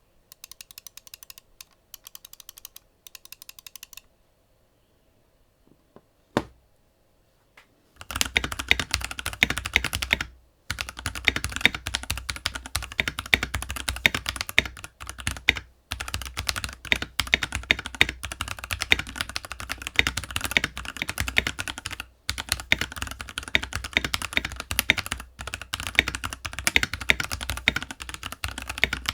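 Keychron K6 Pro 65% mechanical keyboard with Gateron Brown switches being typed on fast, keys clacking loudly in rapid runs. Two short, quieter bursts of typing come first, then a pause with a single click, and from about eight seconds in a steady stream of fast typing with only brief breaks.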